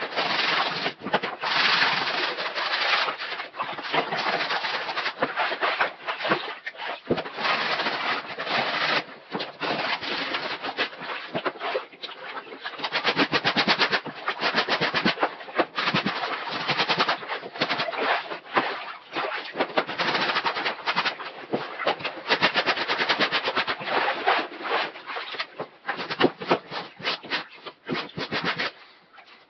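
Hard-bristle scrubbing brush worked over the soaked nylon fabric and webbing of a MOLLE rucksack in soapy bathwater, in rapid back-and-forth strokes. The strokes come in runs of a few seconds with short pauses between.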